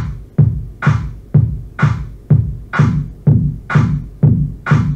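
Sampled techno kick drum hitting about twice a second, with a sampled hand clap on every second kick, played back as a looped beat.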